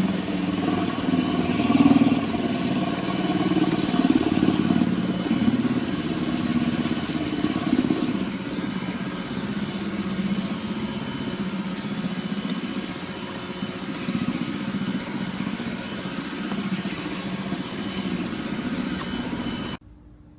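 Westinghouse ePX3500 electric pressure washer running, a steady motor-and-pump drone with the hiss of its water jet spraying a composite deck. It cuts off suddenly near the end.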